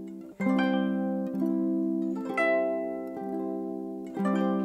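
Background music of plucked strings, ringing notes struck in a gentle melody, with a short break about a third of a second in and a louder new phrase near the end.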